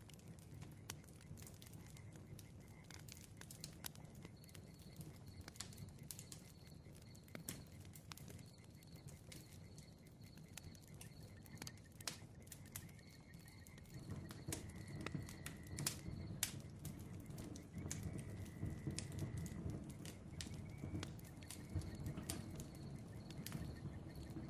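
Bonfire crackling, with frequent sharp pops and snaps over a low rumble of flame that grows fuller a little past halfway. Faint thin chirping tones sit in the background.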